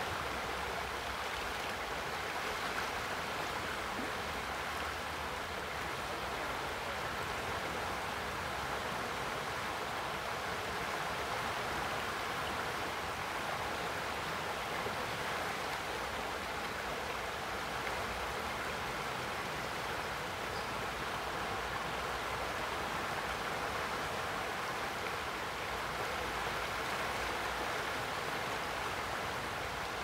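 Boise River, swollen in spring, rushing steadily over a shallow riffle: an even, unbroken churn of moving water.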